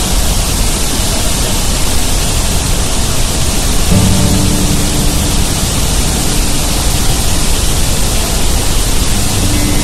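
Floodwater pouring through opened dam spillway gates: a loud, steady rush of churning white water.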